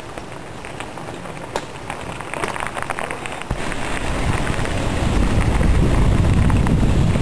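Mountain bike coming over a stony trail, with scattered crunches and clicks from tyres on rocks and stones. After a sudden cut about three and a half seconds in, a steady rough rumble of wind buffeting the microphone and tyres rolling on gravel takes over and grows louder.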